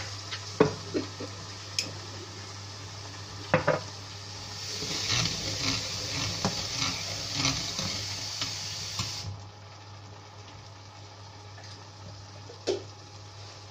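Onion and ginger-garlic paste sizzling in oil in a steel pan while being stirred with a slotted turner, with a few sharp knocks of the utensil against the pan. The sizzling and stirring are louder from about four to nine seconds in, then drop to a quieter hiss.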